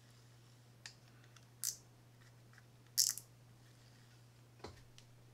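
Gears of a Shimano Citica 200D baitcasting reel clicking faintly as the handle is turned slowly. There are a few scattered clicks and two short high-pitched rattles about a second and a half apart, over a low steady hum.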